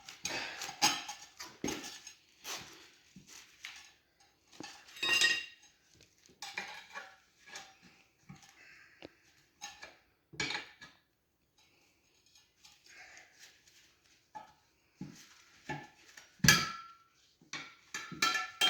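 Metal tire levers clinking, knocking and scraping against a dirt bike's rear wheel rim as a stiff tire with a mousse insert is levered over it. The clinks come at irregular intervals; the loudest is about five seconds in, and a hard knock comes near the end.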